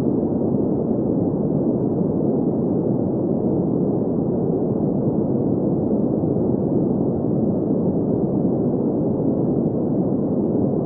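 Steady green noise: an even hiss-like rush centred in the low-middle pitches, muffled, with no highs, unchanging throughout.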